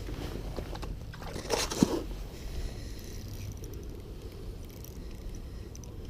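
Low rumble of wind buffeting the microphone in a snowstorm, with one brief crunching scrape about a second and a half in.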